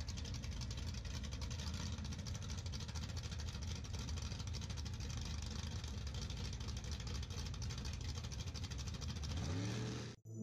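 Drag-racing pickup trucks' engines idling at the starting line, a loud, fast-pulsing rumble, with a rising tone near the end. It cuts off suddenly into music.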